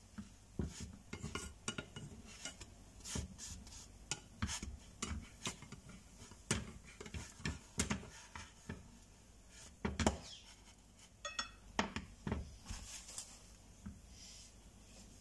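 Plastic slotted spatula scraping and tapping in a nonstick frying pan as a pancake is worked loose, with the pan knocking on a glass cooktop: a run of irregular clicks and knocks.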